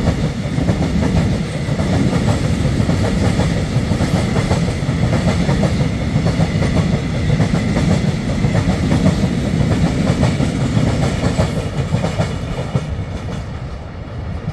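Freight train of cement tank wagons rolling past, steel wheels rattling and clacking over the rail joints in a dense, continuous run. The noise eases off near the end as the last wagons pass by.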